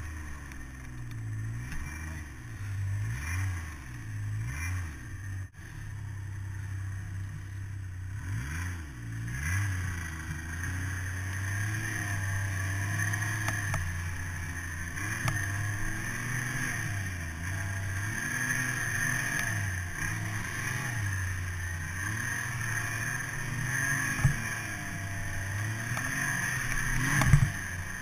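Snowmobile engine running under the rider, its pitch rising and falling as the throttle is worked through deep powder. Two sharp knocks come near the end.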